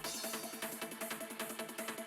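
Electronic trance-techno track. The kick drum and bass drop out at the start, leaving a fast repeating synth pattern over regular high ticks.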